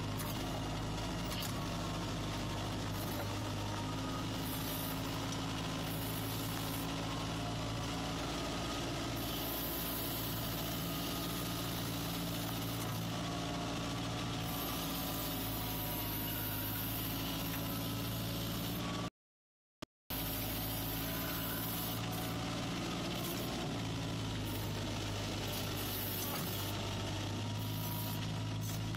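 Snowcat engine running steadily as the machine plows snow with its front blade, heard from inside the cab. The sound cuts out for about a second just past the middle.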